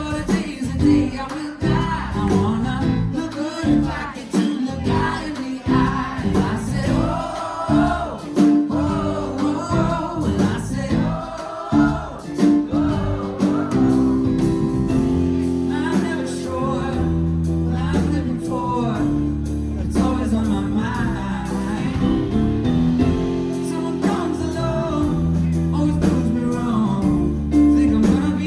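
Live band music with singing over guitar. For about the first half the playing is sharply rhythmic. Then it settles into held chords with sustained low notes.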